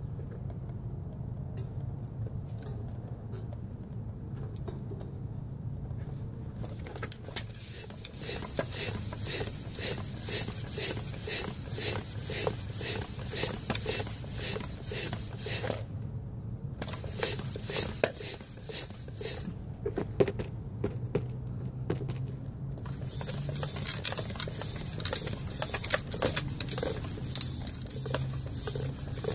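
Floor pump worked in quick strokes, a hiss of air on each stroke, starting about seven seconds in and keeping up with a few short pauses, inflating a dry tubeless mountain-bike tire to try to seat its bead.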